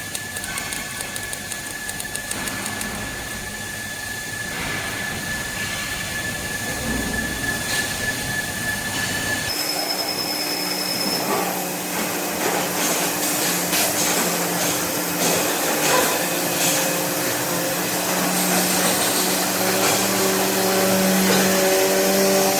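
Robotic arc welding in a factory cell: a steady crackling hiss with sharp clicks, mixed with the steady hum and whine of machinery. About nine and a half seconds in, the sound changes abruptly and grows gradually louder toward the end.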